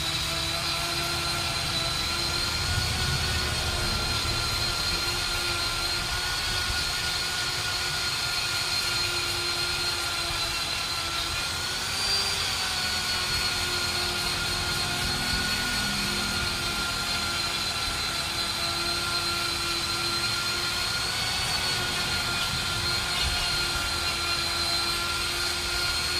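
Steady mechanical whine of a running motor or power tool, holding one pitch with a brief slight rise about twelve seconds in.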